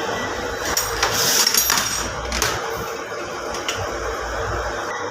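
Several sharp metallic clinks and taps of hand tools on metal parts, clustered about one to two and a half seconds in, over a steady mechanical hum.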